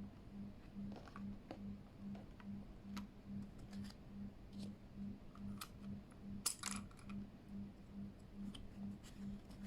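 Scattered small plastic clicks and taps of keyboard parts being handled, with a quick cluster of louder clicks about six and a half seconds in. A low hum pulses underneath about two and a half times a second.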